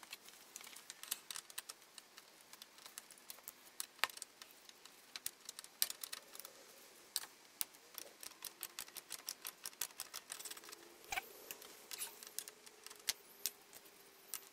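Socket ratchet clicking in quick runs as the nuts on the AC condenser's refrigerant pipe connections are undone, mixed with scattered sharper metal clicks.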